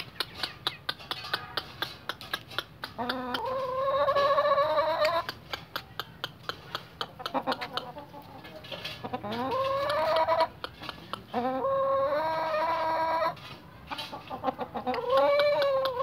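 Aseel rooster crowing several times, each crow starting low, rising, then held for a second or two. Quick sharp clicks sound between the crows.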